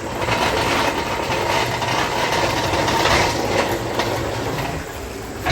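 Engine hoist carrying the engine, its casters rolling and rattling over the concrete driveway: a continuous rumbling clatter that eases off near the end.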